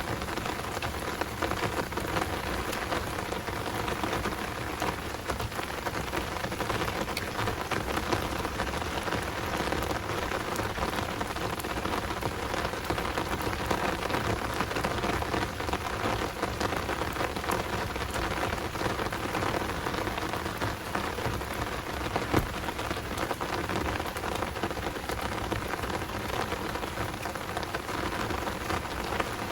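Heavy rain falling steadily: a dense, even patter of many drops.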